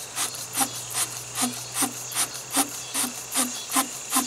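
Battery terminal cleaner's wire brush scraping a battery post as it is twisted back and forth, in even rasping strokes about two to three a second, cleaning the post so the terminal clamp makes good contact.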